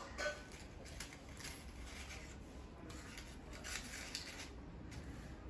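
Faint rustling and scraping of a small white cardboard gift box being handled and folded, with a sharper scrape just after the start.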